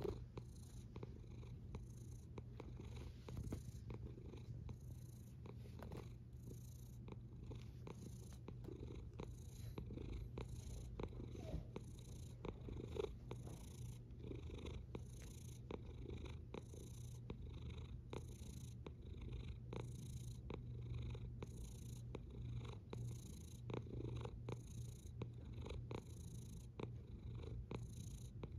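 Domestic cat purring steadily right at the microphone: a low rumble that pulses about once a second.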